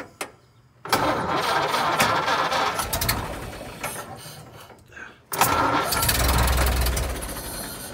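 1929 Ford Model A's four-cylinder flathead engine, two start attempts: each starts abruptly, about a second in and again a little past five seconds, runs briefly and fades away as the engine dies. The owner takes the stalling for fuel starvation and suspects the carburettor.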